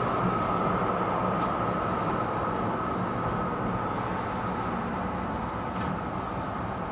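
Tram running noise heard from inside the passenger car while it moves: a steady rumble with a constant high whine, a couple of faint clicks, and the noise easing off slightly toward the end.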